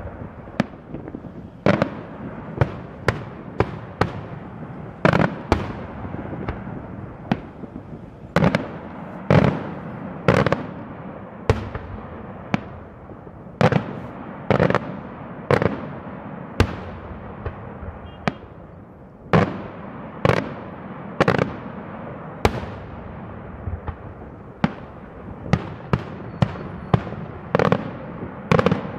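Daytime fireworks display: aerial shells bursting in a rapid, irregular series of loud bangs, about one to two a second, over a continuous rumbling crackle.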